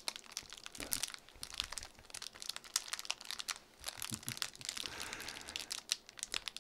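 Clear plastic bag crinkling as hands squeeze and turn it: a steady run of quick, sharp crackles.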